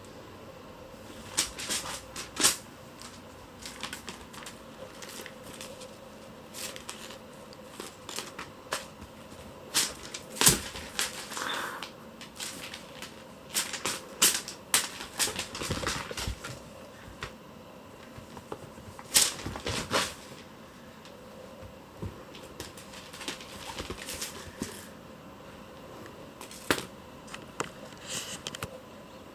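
Kittens playing with a cat-teaser toy: irregular taps, scratches and scrabbling of paws and claws as they pounce, busiest in the middle, over a faint steady hum.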